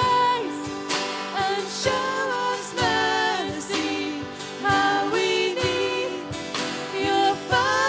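Christian worship song: a voice singing a melody over instrumental accompaniment.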